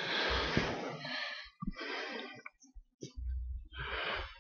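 A person breathing softly close to a microphone, with a few short clicks in between.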